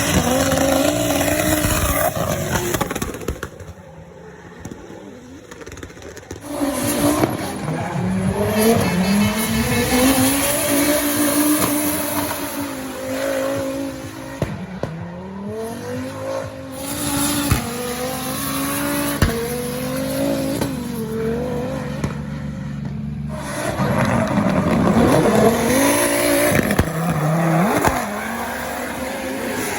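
Rear-wheel-drive converted Audi TT drifting: its engine revving up and down again and again, with tyres squealing. The sound drops off for a few seconds about four seconds in, then the car comes back loud.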